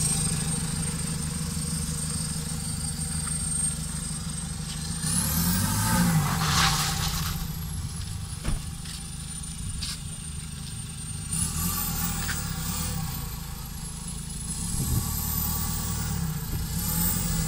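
Mitsubishi pickup's 4D56 turbo-diesel engine pulling away and accelerating, loudest about six seconds in. A thin high whistle rises and falls with the revs.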